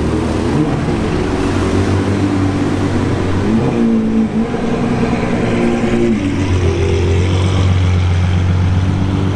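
Ferrari 812 Superfast's naturally aspirated V12 engine running loud and steady. Its pitch holds level for stretches and shifts up and down in steps several times.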